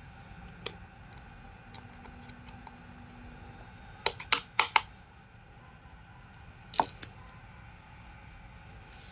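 Small metal parts clinking and tapping on a hard surface: scattered light clicks, a quick run of four sharp clinks about four seconds in, and another about a second and a half later.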